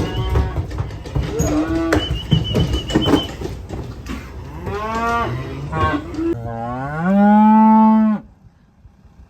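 Cattle mooing: several cows call in turn, each call rising in pitch. The loudest is a long bellow about six seconds in that holds steady, then stops suddenly near eight seconds.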